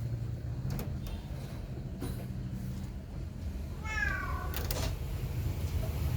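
A domestic cat meows once, about four seconds in: a short call falling slightly in pitch, over a steady low rumble.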